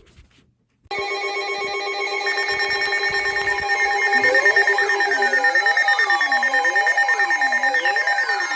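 Electronic emergency alert tones start about a second in after a brief silence: several steady tones with a fast flutter. A few seconds later a siren wail joins them, sweeping up and down about once a second, with slower falling sweeps above it.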